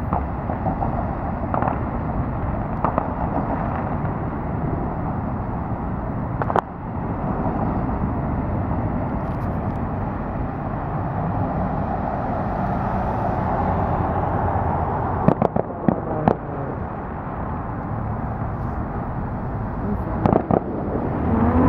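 Fireworks going off, scattered sharp pops and bangs at irregular intervals, with a few close together about fifteen seconds in and again near the end, over a steady background rumble of traffic.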